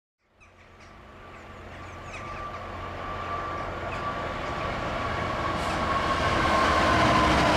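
Class 66 diesel-electric locomotive hauling a freight train, its engine and wheels on the rails growing steadily louder as it approaches. Under a low rumble runs a high whine that slowly sinks in pitch.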